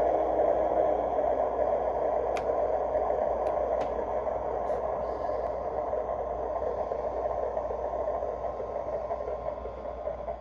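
A 3D printed model train running along its track: a steady rumble that slowly fades, with a few light clicks. A held horn tone stops within the first second.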